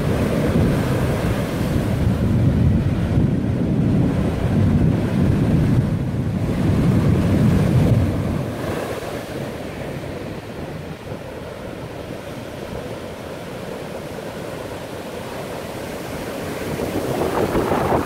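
Rough sea surf breaking and washing onto a sand beach: a continuous rushing of waves, with wind buffeting the microphone. It is heaviest in the first half, eases off a little after the middle, and builds again near the end.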